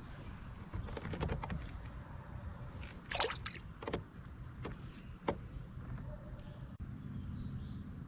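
Scattered light knocks and clicks, a few close together about three seconds in, over a steady low rumble of wind and water. The sound changes abruptly near the end, and a faint steady high insect hum follows.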